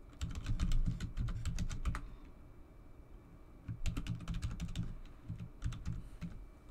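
Typing on a computer keyboard: a quick run of keystrokes, a pause of about two seconds, then a second run of keystrokes.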